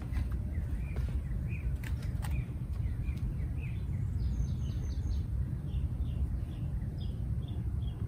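Steady low outdoor rumble, with small birds chirping faintly in short repeated notes that come more often in the second half.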